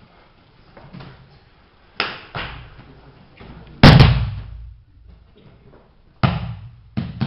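A person thrown onto a training mat, with bodies and hands striking it: a few sharp slaps and thuds, the loudest and heaviest about four seconds in as he lands, then two more near the end.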